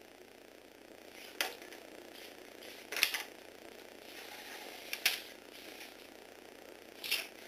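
Lego Technic walking robot's motor and gears running with a faint steady whir, with four sharp plastic clacks about every two seconds as its parts shift and its feet strike a wooden floor; the clack about three seconds in is the loudest.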